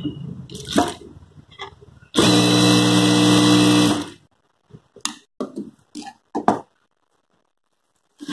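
Industrial lockstitch sewing machine running in one steady burst of about two seconds as it stitches layered blouse fabric, followed by short rustles and taps of the cloth being handled on the table.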